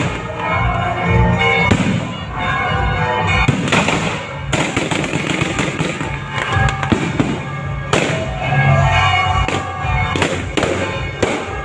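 Fireworks going off, many bangs in quick succession with denser clusters about 3.5, 8 and 10 to 11 seconds in, over music.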